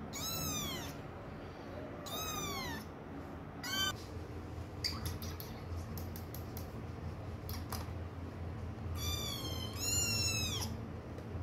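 Kitten meowing: five high, arching mews, three in the first four seconds and two close together near the end, with a few faint clicks in between.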